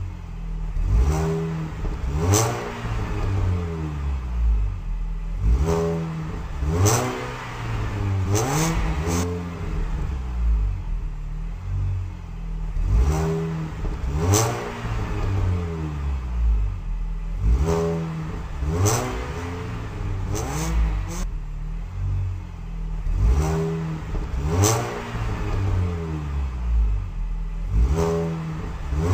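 A car engine revving again and again, its pitch rising with each rev about every two seconds, with sharp cracks among the revs.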